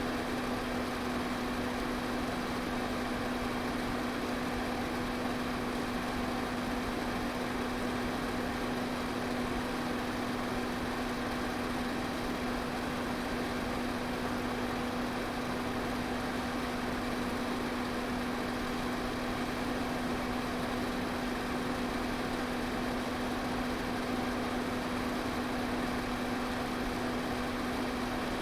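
Electric fan running steadily: an even rush of moving air over a constant low motor hum, with no change in speed.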